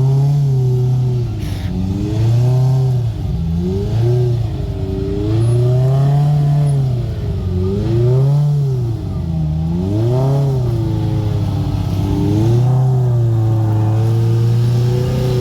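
Polaris RZR side-by-side engine revving up and down over and over as the throttle is worked on a rough off-road climb, then held at a steady pitch near the end.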